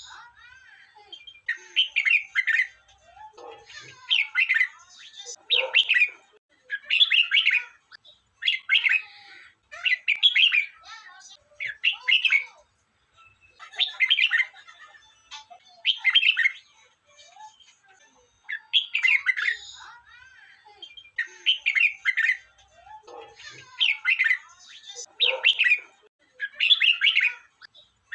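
Red-whiskered bulbul singing: short chirping phrases, each about a second long, repeated every one to two seconds with a slightly longer pause near the middle.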